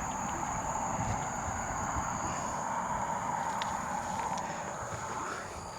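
Night outdoor ambience: a steady high-pitched drone of night insects over a low rumble, with a few faint knocks.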